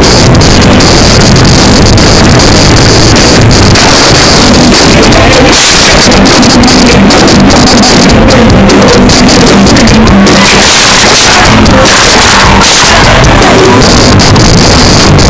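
A rock band playing live, with a singer over guitars and drums, recorded so loud that the audio is overloaded and distorted.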